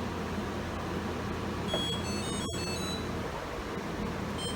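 Samsung dishwasher control panel giving a quick run of short electronic beep tones as it is switched on and buttons are pressed, with another beep near the end. A steady hum from a room air conditioner runs underneath.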